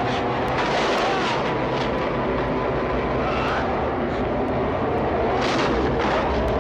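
Steady engine drone with several held, slightly wavering tones.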